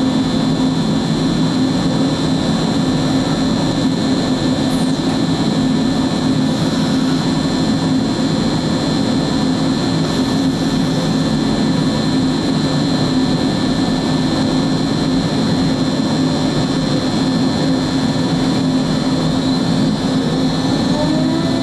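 MultiCam 5000 Series CNC router running: a steady, loud drone with a high whine while the gantry moves over the table. Near the end a rising whine comes in as the spindle spins up.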